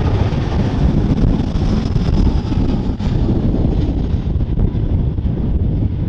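Strong wind buffeting the microphone, with the jet engines of an Airbus A320 fading away behind it over the first few seconds.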